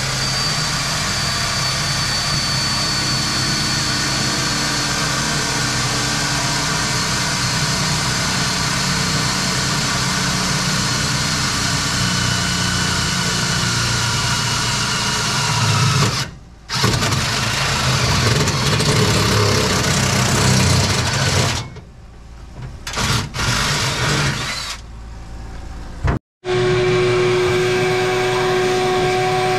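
Wet/dry shop vacuum running with its hose in a car's trunk. The sound dips a few times in the second half, cuts out abruptly, and comes back as a steadier, higher hum.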